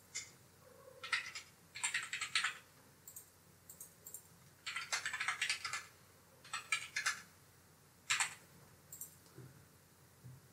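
Computer keyboard typing in several short bursts with pauses between, as numbers are keyed into a form.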